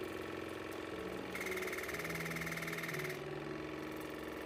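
Waterpik countertop water flosser running, its pump buzzing in rapid, even pulses. It gets louder and hissier for about two seconds in the middle.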